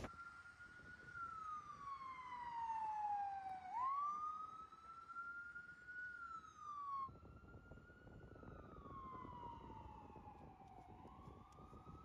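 Emergency vehicle siren wailing: one slow tone that sinks over about three seconds and then climbs back. It cuts off abruptly about seven seconds in and starts again at a lower level, sinking and climbing once more.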